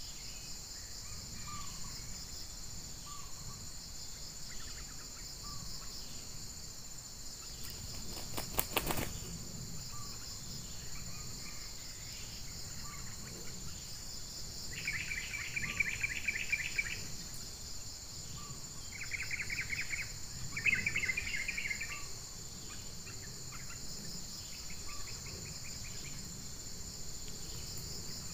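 Steady high-pitched chorus of insects, with a few short pulsed trills in the middle. A brief, louder flutter of rapid clicks comes about eight and a half seconds in.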